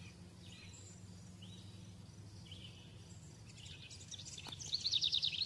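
A bird singing: a quick trill of high chirps near the end, with softer single chirps before it, over a steady low hum.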